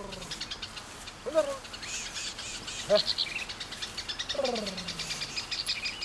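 Honey hunters calling to a honeyguide bird with short falling hoots, three times, the last one longer and drawn out. A fast, even chatter of high chirps runs underneath.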